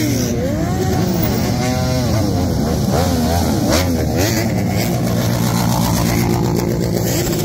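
A procession of motorcycles, sport bikes and cruisers, riding past one after another. Their engines rise and fall in pitch several times over a steady engine hum.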